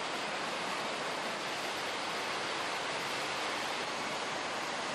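Waterfall: water rushing and splashing down over rocks with a steady, unbroken sound.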